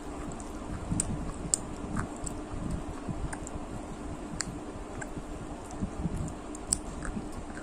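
Close-miked eating sounds: a person chewing crunchy food, with irregular sharp crackling clicks, over a faint steady hum.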